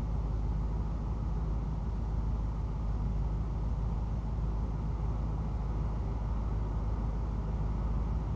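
A vehicle engine idling, heard from inside the cab as a steady low rumble that does not change.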